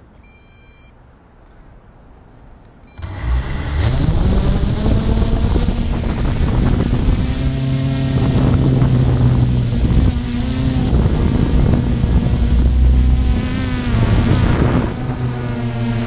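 A brief electronic beep, then a motor vehicle's engine comes in suddenly about three seconds in and keeps running, its pitch rising and falling a little.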